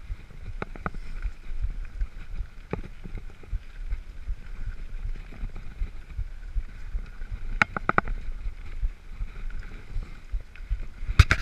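Mountain bike riding over a stony gravel track: a steady low rumble of tyres on loose stones, with sharp clicks and rattles from the bike jolting over rocks, a quick cluster of them about two-thirds through and another at the very end.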